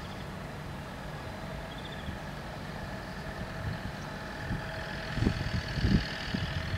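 Level crossing warning bells ringing steadily while the barriers are down. A few low thumps come in about five seconds in.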